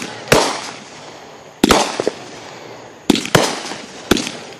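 Fireworks going off: about six sharp bangs at irregular intervals, some in quick pairs, each trailing off briefly.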